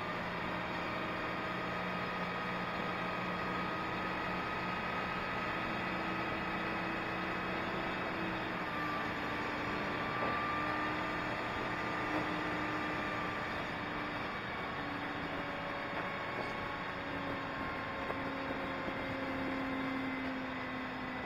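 A hydraulic mobile crane's diesel engine running steadily, with a whine whose pitch drifts slowly up and down.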